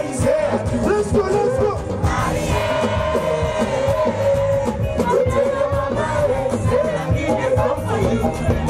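Live music through a concert PA: a man singing into a microphone over a loud backing track with heavy bass.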